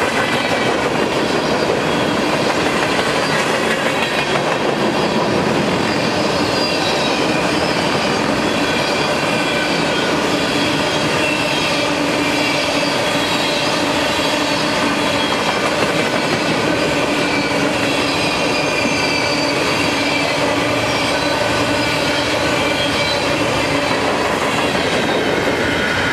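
A freight train's cars roll past close by, with a steady loud rumble of steel wheels on rail and thin squealing tones from the wheels that drift slowly in pitch. A locomotive comes alongside right at the end.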